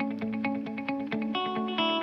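Background music: a fast, even pulse of plucked notes over a held bass, changing chord about a second and a half in.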